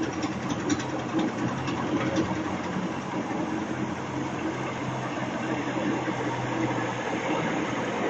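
Portable drum concrete mixer with a loading skip, its engine running steadily with a low hum.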